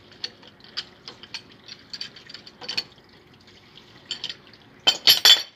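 Water trickling from an open pipe valve, with a string of small metallic clicks and knocks as hands work the threaded pipe union on an electric water pump. About five seconds in comes a louder burst of rapid clattering.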